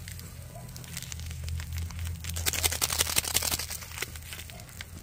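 Twig fire crackling and popping inside a small camp stove made from a perforated steel IKEA utensil holder, under a pot at a rolling boil. The pops come thickest about two to three and a half seconds in, over a steady low hum.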